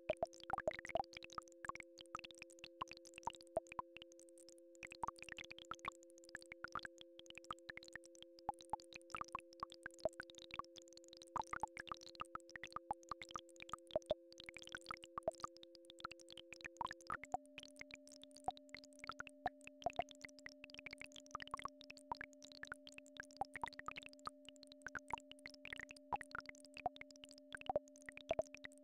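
Two steady synthesized sine tones sounding together, a healing-frequency drone, which switch to a different pair of pitches about 17 seconds in. Beneath them runs a scatter of quick, soft plops and ticks.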